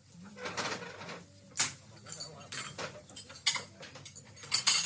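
Café ambience: cutlery and crockery clinking in sharp scattered strikes, with a quick cluster of loud clinks near the end, over muffled background talk.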